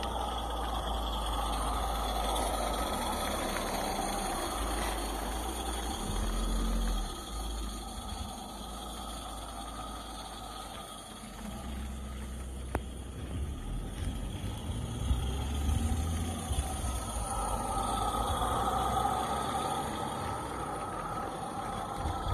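Small live-steam garden-railway locomotive running with its coaches: a steady hiss and running noise, with an irregular low rumble underneath.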